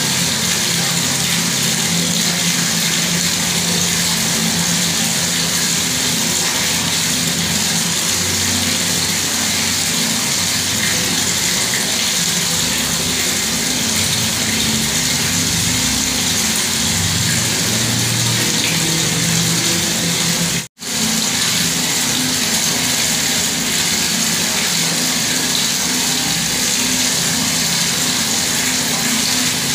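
Bathroom water tap running, a steady stream of water rushing and splashing with a low rumble under it. The sound cuts out for an instant about two-thirds of the way through.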